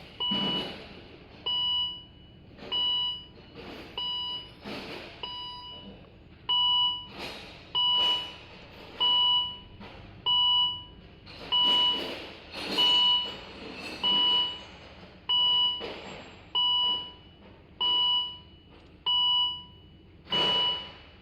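2012 Volvo XC60's dashboard warning chime beeping about once a second, with many fault warnings up on the instrument cluster. A few irregular clicks or knocks come between the beeps.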